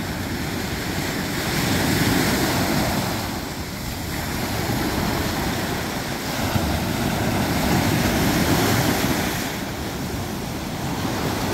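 Small waves breaking and washing around a wader's legs in shallow surf, swelling louder about two seconds in and again around eight seconds, with wind on the microphone.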